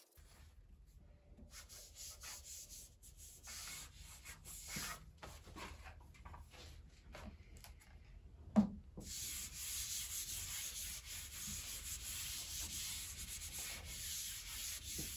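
A hand wiping sanding dust off a freshly sanded epoxy and wood tabletop, a soft rubbing hiss that gets steadier and louder in the second half. One short thump about eight and a half seconds in, as the electric sander is set down on the workbench.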